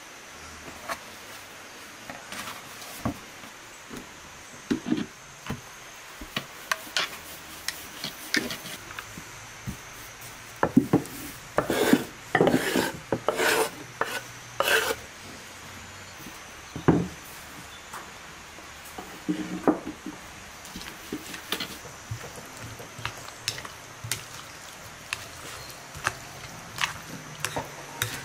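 Kitchen food-prep sounds: a knife knocking and scraping on a wooden chopping board, with a denser, louder run of strokes in the middle, then a spoon stirring and clinking in a cut-glass bowl of yogurt salad near the end.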